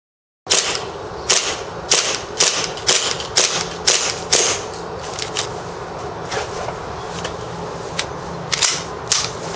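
Tokyo Marui 1911 MEU gas blowback airsoft pistol firing a string of about eight sharp shots, roughly two a second, each crack with the slide cycling, starting about half a second in. Softer, scattered clicks of the pistol being handled follow.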